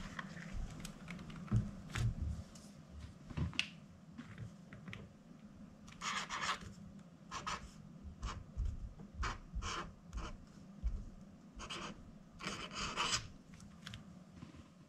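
Posca PC-3M paint marker writing on sketchbook paper: a series of short scratchy strokes as a word is written letter by letter. In the first few seconds, low bumps and rustling as the spiral sketchbook is opened and handled.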